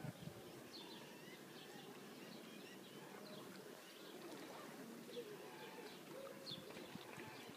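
Faint birds chirping in short, scattered calls over a low, steady outdoor background noise.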